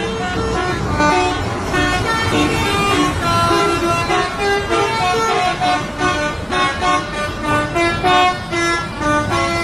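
Truck's telolet horn, a set of air horns switched in sequence, playing a rapid tune of short stepped notes over a low rumble.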